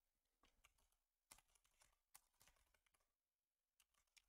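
Faint computer keyboard keystrokes: about ten separate key clicks at irregular spacing.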